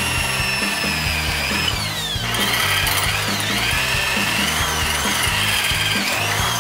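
Electric drill boring a bolt hole through a steel clamp plate. The motor whine sags in pitch about two seconds in as the bit loads up, then climbs back and wavers again near the end.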